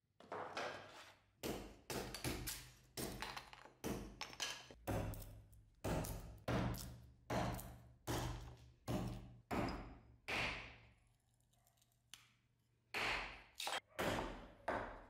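A large butcher knife chopping and splitting pine wood pieces stood on a wooden block: a run of sharp knocks, about one to two a second, each fading quickly, with a short pause about two-thirds of the way through.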